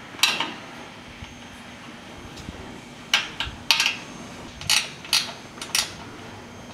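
Light metal clicks and clinks from a brake line fitting being threaded onto a brake master cylinder and a wrench being set on it: about six short, sharp ticks scattered through, over a faint steady hum.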